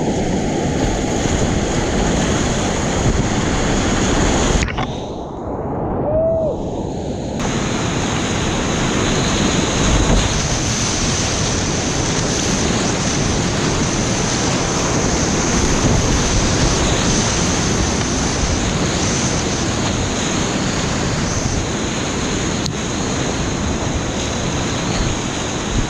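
Loud, steady rush of whitewater rapids churning around a kayak as it runs a big-water rapid, with water splashing close by.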